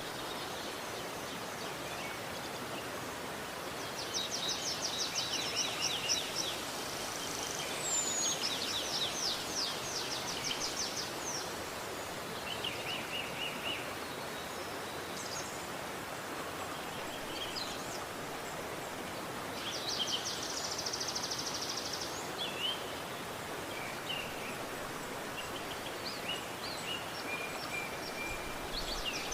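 River water running with a steady rushing hiss, while a songbird sings several short, rapid trills over it, the longest about four, eight and twenty seconds in.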